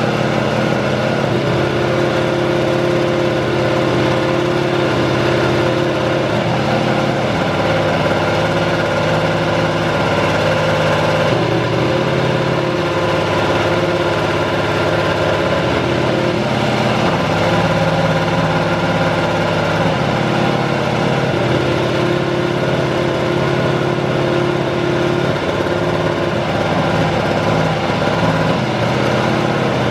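Honda RA618H 1.6-litre turbocharged V6 in a Toro Rosso STR13 Formula 1 car running loud and steady at a held engine speed while being warmed up, its pitch stepping slightly up and down every few seconds.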